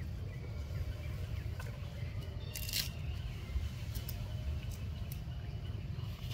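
Steady low outdoor rumble with a few faint clicks and one brief rustle about two and a half seconds in.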